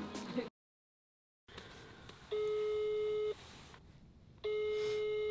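Telephone ringback tone on an outgoing call, heard through the phone's loudspeaker: two one-second beeps of one steady mid-pitched tone, about two seconds apart. Background music cuts off about half a second in.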